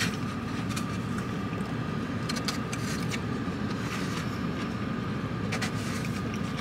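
Steady low rumble of a car idling, heard inside its cabin, with a faint steady whine over it. A few soft clicks of a plastic fork in a foam takeout container.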